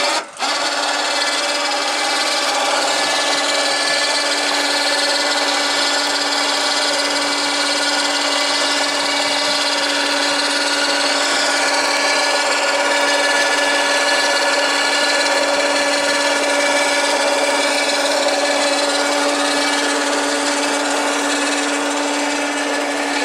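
Winch motor of a hinged-mast lowering system running steadily, a constant whine as it pays out cable and lets the mast down. It starts about half a second in.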